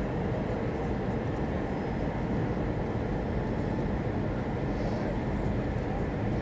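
Steady cabin noise of an Airbus A320 in flight on approach: an even rumble of engines and airflow.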